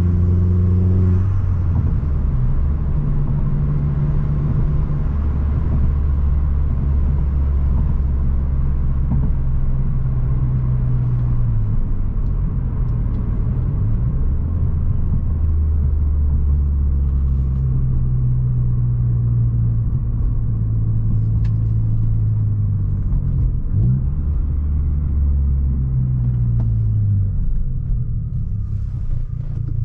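Opel Astra G Bertone 2.0 turbo four-cylinder engine running under way, a steady low drone that holds its pitch for stretches and slides up or down several times as the throttle and gears change.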